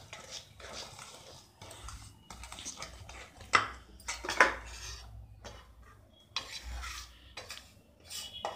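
Metal utensil stirring thick cake batter in a stainless steel bowl, scraping and clinking against the sides in an irregular rhythm, with two louder knocks about three and a half and four and a half seconds in.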